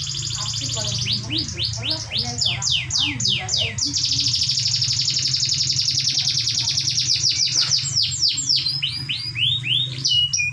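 Canary singing a long, unbroken song of rapid high trills, broken twice by runs of quick downward-sweeping notes, with a brief pause near the end. A steady low hum lies underneath.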